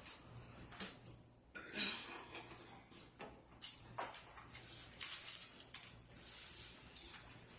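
Someone eating a hot dog, heard as scattered small clicks, chewing and rustling of food and wrapper, with a longer rustle past the middle. A low steady hum runs underneath.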